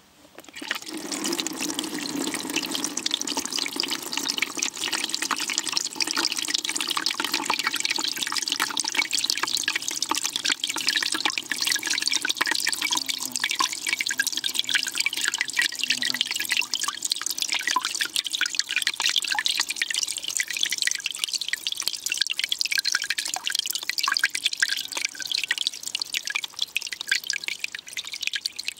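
Water turned on through a hand shower head lying submerged in a bucket, jetting and splashing up through the shallow water in a steady rush. The flow starts about half a second in.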